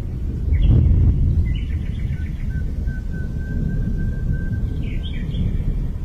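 Parakeet calls: short harsh squawks about half a second in, again around two seconds in and near five seconds, with a thin steady whistle between them, over a low rumble.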